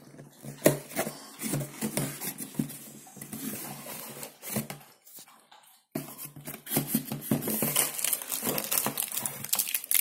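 Crinkling and rustling of a dishwasher tablet's packaging being opened, with light clicks and knocks; the sounds stop briefly about five seconds in, then resume.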